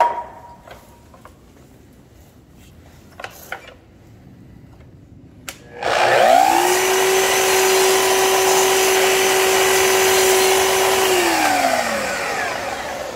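Festool Kapex KS 120 EB sliding miter saw making a light trim cut in softwood. About halfway through, its motor spins up with a rising whine and runs at a steady pitch for about five seconds, then winds down with a falling tone. A few light knocks come before it as the workpiece is set against the fence.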